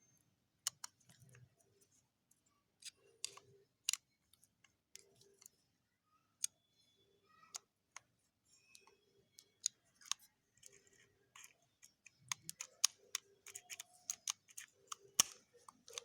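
Scattered sharp clicks and taps of small metal lock parts and tools being handled, sparse at first and coming more often over the last few seconds.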